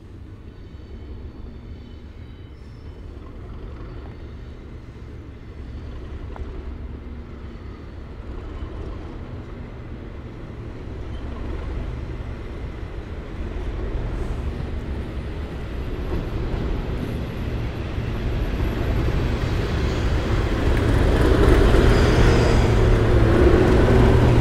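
Class 37 diesel locomotive's English Electric V12 engine running with a low rumble that grows steadily louder as the train approaches, fuller and loudest in the last few seconds.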